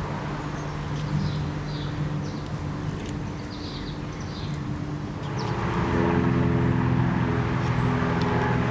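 A vehicle engine running steadily, growing louder and changing pitch about five and a half seconds in, with a few short bird chirps in the first half.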